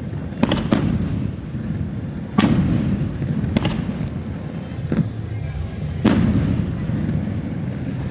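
Aerial fireworks going off in a series of about six sharp bangs, two of them in quick succession near the start, with the loudest at about two and a half and six seconds in. A low rumble of echo and more distant bursts carries on between the bangs.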